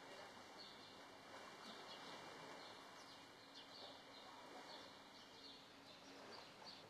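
Faint background of small birds chirping about twice a second over a steady low hiss.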